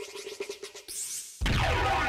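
Logo intro music: quick stuttering glitch and scratch effects, then a sudden loud hit with deep bass about one and a half seconds in, with electronic music carrying on after it.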